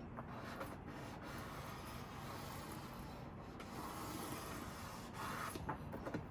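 Faint rubbing and scraping as the iMac's display panel is worked up with suction cups against its adhesive strips, with a couple of small clicks near the end.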